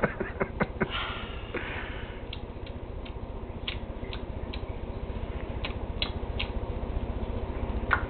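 Pet bird drinking coffee from a cup: its beak makes a quick run of sharp clicks in the first second, then about a dozen scattered single clicks and taps, over a low steady hum.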